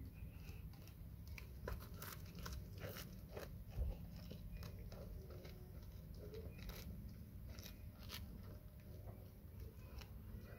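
Labrador retriever biting and chewing a large grilled sandwich: irregular wet crunches and mouth clicks as the toasted bread breaks up, thickest through the middle of the stretch.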